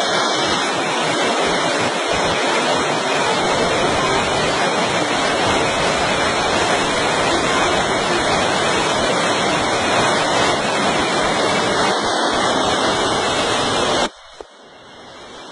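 Muddy flash-flood water rushing down a street in a torrent, a loud steady rushing noise. Near the end it cuts off suddenly and then builds back up.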